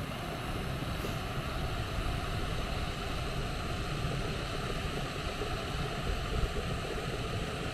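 Steady rushing hiss of two canister gas stoves, a Jetboil Zip and a Kombat Cyclone, burning at full flame as their water nears the boil, with wind rumbling on the microphone.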